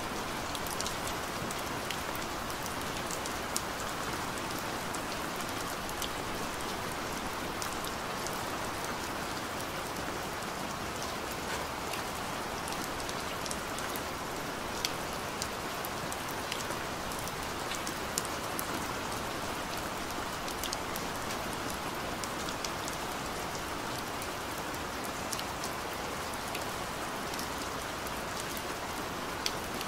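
Steady rain: an even hiss of rainfall with many small, sharp drop ticks scattered through it, and a few louder ones now and then.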